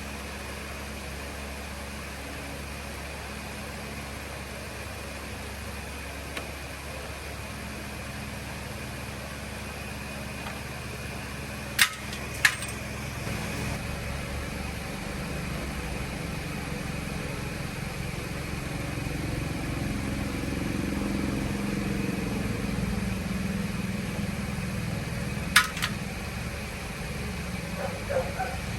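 A steady low mechanical hum that grows a little louder in the second half, broken by three sharp metallic clicks: two close together about halfway through and one near the end.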